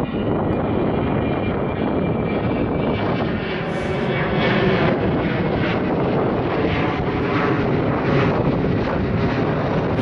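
Jet airliner passing overhead, a loud, steady rush of engine noise.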